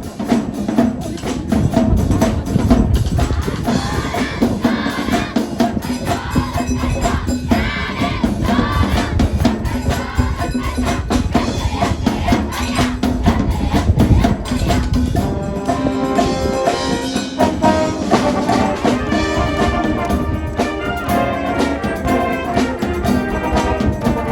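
Marching band playing, with brass carrying the melody over a drumline's rapid, steady drumming. The brass chords grow fuller about two-thirds of the way through.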